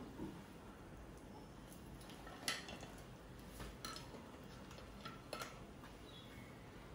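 A few faint, scattered clicks and ticks from kitchen utensils and a pan of hot frying oil, just after fried pastries have been lifted out, over a low background hum.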